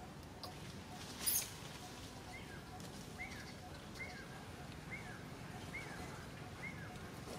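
Six short high chirps from an animal, evenly spaced about one a second, after a single brief, louder and shriller sound about a second in.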